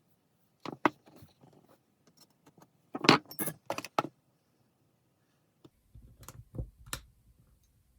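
Small hard objects being handled: clusters of sharp clicks and light metallic rattling, loudest around three to four seconds in, with further clusters about a second in and near seven seconds.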